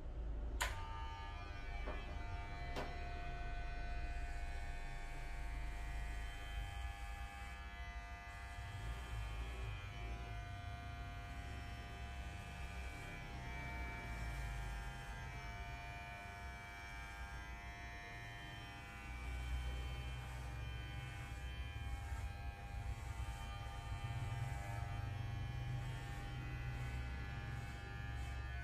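Corded electric hair clippers buzzing steadily as they cut hair close to the scalp, the buzz swelling and easing as the blades move over the head. Two sharp clicks sound within the first three seconds.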